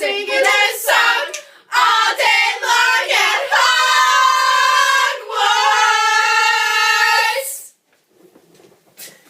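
A high voice singing a chant in short phrases, then holding one long note for about four seconds before stopping abruptly; faint rustling and a click follow.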